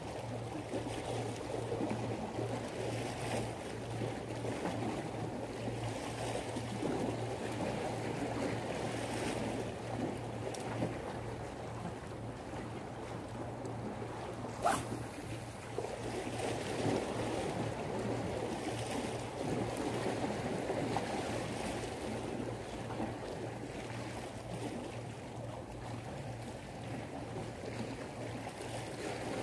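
Small sea waves washing against breakwater rocks, with wind on the microphone and a steady low hum underneath. About halfway through, a single sharp swish as a spinning rod is cast.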